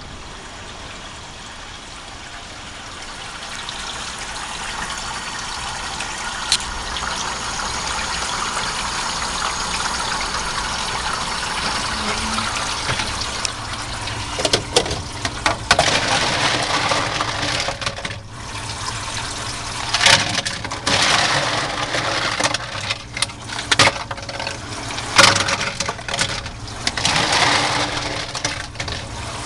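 Hoshizaki IM-95M cube ice maker running with a steady rush of running water that grows louder over the first several seconds. From about halfway on, ice cubes clatter and knock as they are stirred in the storage bin.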